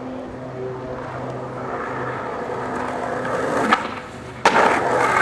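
Skateboard wheels rolling on pavement, growing louder. A sharp pop of the board's tail comes about three and a half seconds in, then a loud slap of the board landing about a second later, and it rolls on.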